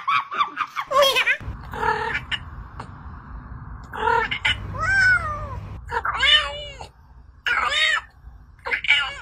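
Domestic cat meowing: a series of meows, some short and some longer with pitch that rises and falls, over a low steady hum.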